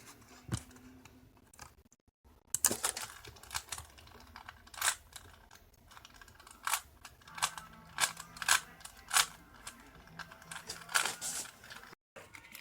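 Irregular plastic clicks and clacks of a Rubik's Cube's layers being twisted, about one or two a second.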